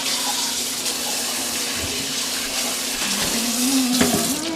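Water rushing steadily into a kitchen sink as lasagna noodles are drained; it cuts off near the end.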